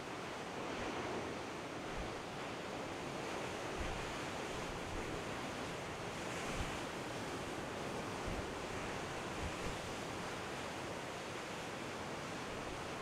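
Storm surf from 20-foot seas breaking on a rocky shore: a steady, unbroken rush of whitewater, with brief low thumps now and then.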